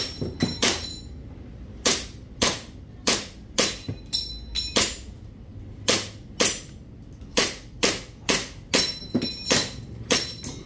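Army Armament R31 1911 gas blowback airsoft pistol being test-fired: about twenty sharp cracks, shot singly at an uneven pace with a few quick runs.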